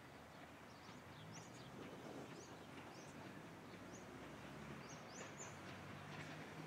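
Small birds chirping in short, high calls over the faint, steady hum of an approaching vintage Brill railcar, which slowly grows louder.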